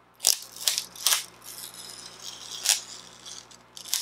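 Clear plastic protective film being peeled off a new MacBook Pro and crinkled in the hand: several short, sharp crinkles with a softer rustle between them.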